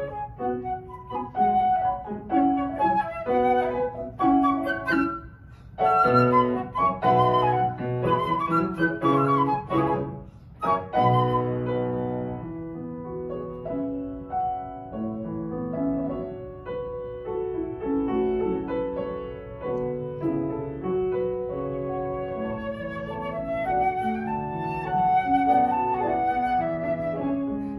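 Flute and piano duo playing. Quick, busy runs with two brief pauses give way about twelve seconds in to a slower passage of longer, lower notes.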